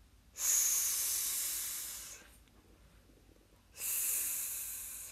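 A person saying the phoneme /s/ aloud as a long hissing 'sssss', twice, each held for well over a second, sounding out the letters 'ss'.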